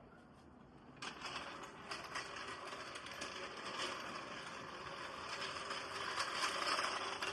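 Mechanical rattling and clicking that starts about a second in and slowly grows louder.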